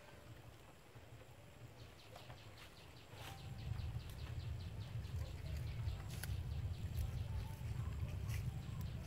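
Lotus leaves and dry plant stalks rustling and crackling as they are handled and picked, with a few sharp snaps. A low rumble swells about three seconds in, and a quick run of faint clicks, about five a second, comes and goes in the first half.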